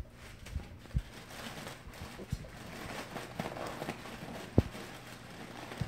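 Foil balloon being handled and squeezed: a rustling crinkle, with a few dull thumps, the loudest about four and a half seconds in.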